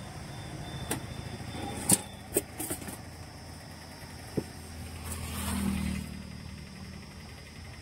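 Steady low engine rumble of a vehicle that swells briefly about five seconds in, with a few sharp metallic clicks from steel spoons and pot lids being handled.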